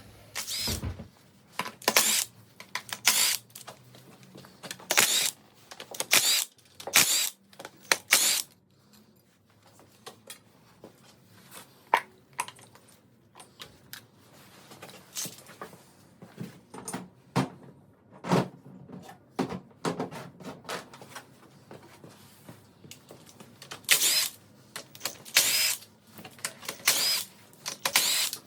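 Metal hand tools working on an engine during disassembly: repeated short bursts of clicking and clanking. The bursts come in clusters in the first several seconds and again near the end, with quieter handling between them.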